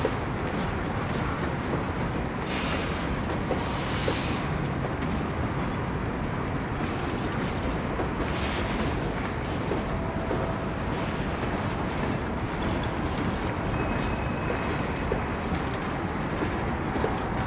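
Freight train cars (boxcars, a tank car and a covered hopper) rolling past: a steady rumble of steel wheels on rail, with scattered short clicks.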